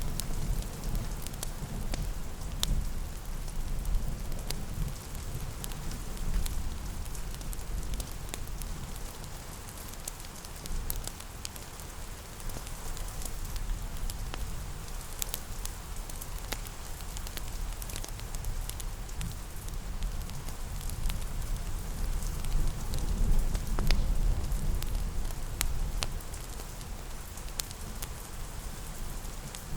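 Steady rain pattering, mixed with a fireplace crackling: scattered sharp pops over a low rumble that swells and eases.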